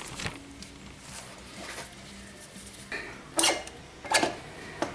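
Sharp metallic clinks and knocks, spaced out, the loudest in the second half, as the front wheel axle of a motorcycle is worked out of the hub.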